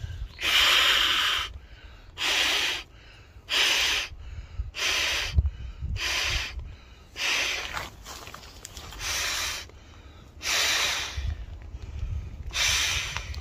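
A man blowing up an OEX Traveller IMX inflatable air mat by mouth, without a pump: about nine hard breaths into the valve, each a short rush of air a little over a second apart.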